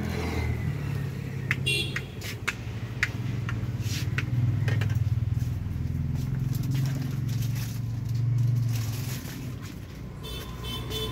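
A motor vehicle running: a low drone that swells and eases a few times, with scattered clicks and knocks over it.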